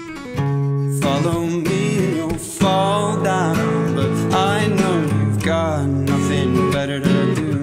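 A man singing to his own strummed acoustic guitar. The guitar chords run throughout, and the voice comes in about a second in with a melody that slides between notes.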